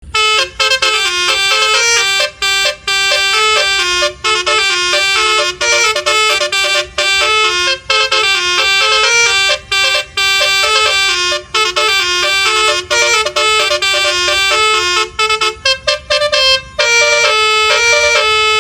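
Telolet horn on a Basuri intercity bus playing its tune: a run of short air-horn notes stepping up and down in pitch, in repeated phrases with brief breaks, turning to a higher phrase near the end.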